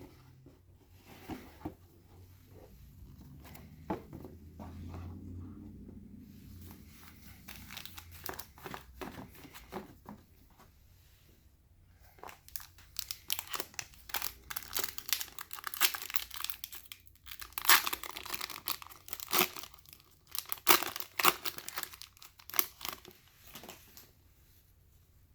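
Plastic foil wrapper of a trading card pack crinkling and being torn open, in quick crackly bursts that grow busier and louder in the second half.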